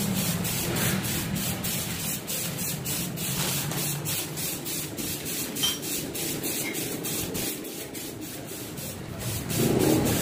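Aerosol spray-paint can hissing as paint is sprayed onto a motorcycle fuel tank in passes, getting louder near the end.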